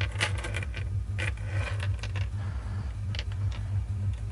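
Small metal wing nuts clicking against each other as they are slid aside by hand in fives, a quick run of clicks in the first second or so and a few single clicks later, over a steady low hum.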